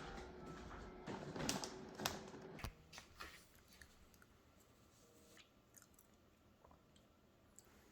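Light handling noises: a run of small clicks and crunchy rustles over the first two and a half seconds, then only a few faint scattered ticks.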